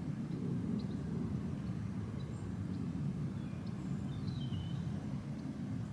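Outdoor ambience: a steady low rumble, with a few faint high bird chirps about four seconds in.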